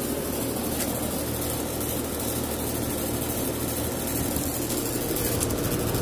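2017 Rheem Classic central air conditioner's outdoor condensing unit running in cool mode: a steady hum from the compressor and condenser fan, with held low tones.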